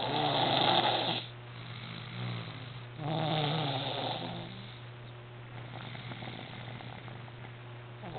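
A baby snoring: two loud snores about three seconds apart, with quieter breathing between them.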